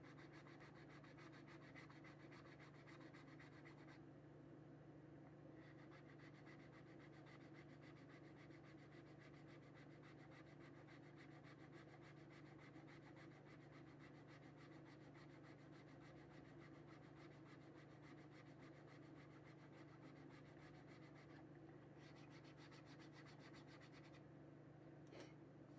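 Faint, steady scratching of sandpaper rubbing on Lexan and ABS plastic, over a low steady hum. A short sharp tap near the end.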